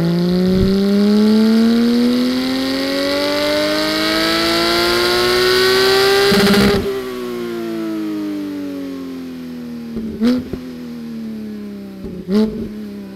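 Porsche 718 GT4's 4.0-litre flat-six, breathing through stock headers, SOUL resonated over-axle pipes and a valved muffler with its valves held fully open, making a full-throttle dyno pull. The revs climb steadily for about six and a half seconds, then the throttle is lifted and the revs wind down, with two sharp pops as they fall.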